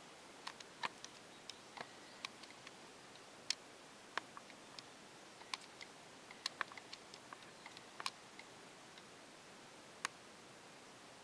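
Faint scattered clicks and ticks at irregular intervals, a few sharper than the rest, over a steady low hiss; no alarm tone sounds.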